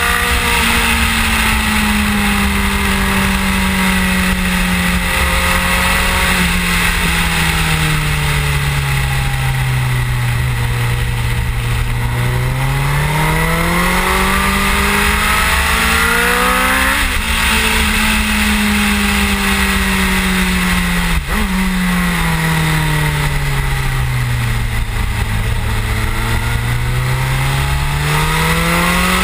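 Suzuki GSX-R1000 K7's inline-four engine at speed on track. The revs fall slowly for about ten seconds, climb hard, jump suddenly twice a little past the middle as gears change, then fall and climb again. Heavy wind rush on the microphone runs underneath.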